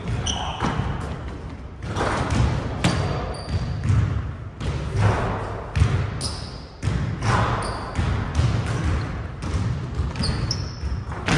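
Basketballs bouncing on a hardwood gym floor, a steady run of separate thuds that echo in the gym, with a few short high squeaks near the start and near the end.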